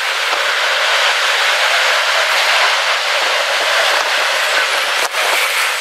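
Strong storm wind rushing in a loud, steady hiss, the gusty outflow of a rear-flank downdraft. A couple of light knocks come near the end.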